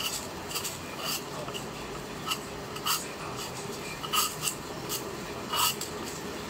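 Vegetable peeler scraping the skin off a potato in short strokes, about two a second and unevenly spaced.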